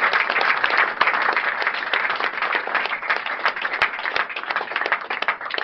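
A group of people applauding, with dense clapping that thins a little toward the end.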